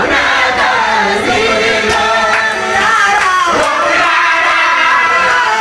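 A mixed chorus of mostly women's voices singing a devotional chant together, led by a male singer on a microphone.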